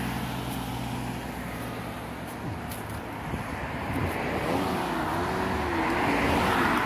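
Road traffic passing on a dual carriageway: a motorcycle's engine fading as it rides away, then a car approaching, its engine and tyre noise swelling to the loudest point as it passes close near the end.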